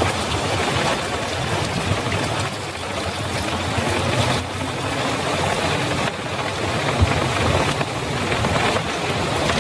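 Heavy rain pouring on a flooded road and running water, with a low, steady engine rumble underneath that grows louder in the second half.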